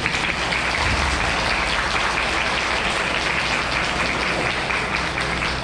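A string of firecrackers crackling densely and steadily, a fast run of small pops.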